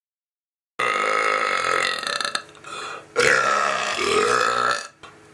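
Two long, loud, pitched human burps, the first starting about a second in and the second about three seconds in.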